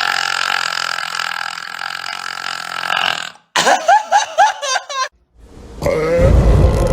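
A long, drawn-out human burp held on a steady pitch for about three and a half seconds. A few short, pitch-bending vocal sounds follow, and another loud, deep burp begins near the end.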